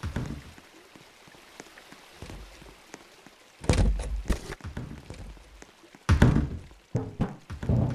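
A few dull thumps and knocks: a cluster just before halfway and the loudest about three quarters through, with faint handling noise between.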